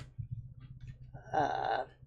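A short hesitant vocal 'uhh' from a woman searching for a word, about a second and a half in, after a click and a few faint ticks of handling, over a steady low hum.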